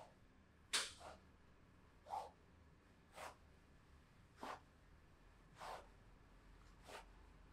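Massage strokes: hands swishing over skin and cloth on a person's back, a short soft swish roughly every second, the loudest about three quarters of a second in.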